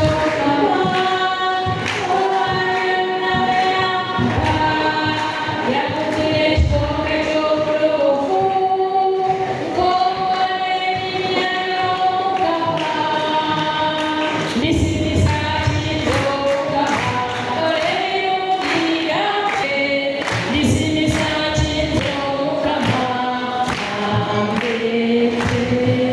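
A choir of many voices singing a song together, with an occasional low thud under the singing.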